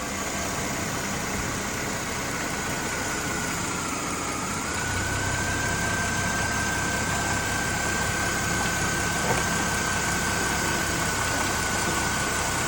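2011 Mercedes-Benz E350's 3.5-litre V6 engine idling after a new idler pulley and serpentine belt have been fitted. A steady high whine runs over the idle, dips briefly about four seconds in, and a deeper rumble grows stronger about a second later.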